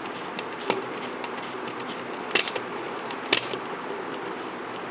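A few light, sharp clicks of a small screw and screwdriver being worked into a plastic Mini 4WD chassis, over a steady hiss.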